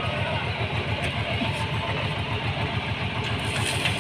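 An engine idling steadily with a fast, even low pulse, with a few faint metal clicks over it.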